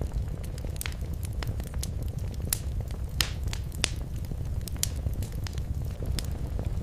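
Fire in a fireplace crackling: irregular sharp pops and snaps over a steady low rumble, with a few louder pops around the middle.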